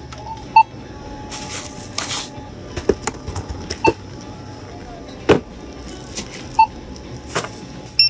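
NCR self-checkout scanner beeping as items are scanned, three short beeps a few seconds apart, with knocks of items set down on the scanner bed and a brief rustle of a plastic bag. Faint music underneath.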